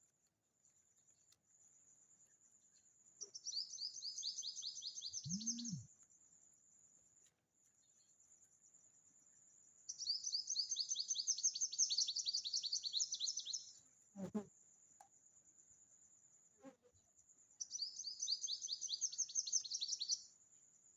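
A songbird singing three similar phrases of fast, falling high notes, about three, ten and eighteen seconds in, over a steady thin high buzz like insects. A low thud comes near the end of the first phrase, and a short knock about fourteen seconds in.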